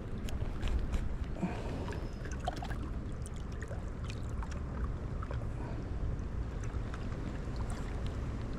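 Wind rumbling on the microphone over water lapping and splashing lightly against shoreline rocks, with many small scattered ticks.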